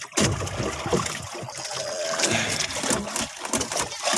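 Water sloshing and splashing irregularly against a small boat's hull.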